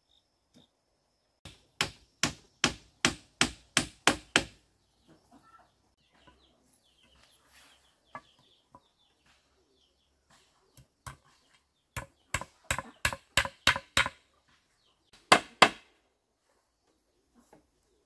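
Quick runs of sharp blows from a hand tool on wood, seven or eight strikes at a time at about three a second, with a few scattered single blows between and two last strikes near the end.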